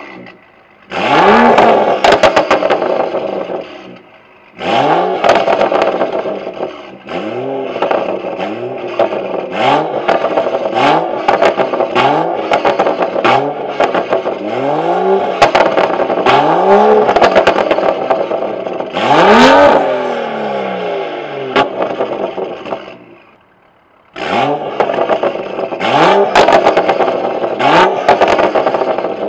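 BMW 335i's N55 turbocharged 3.0-litre straight-six heard through an AWE Touring Edition axle-back exhaust, performance mid pipe and catless downpipe. The engine speed rises and falls over and over in quick runs, with brief lulls, and there are many sharp crackles and pops.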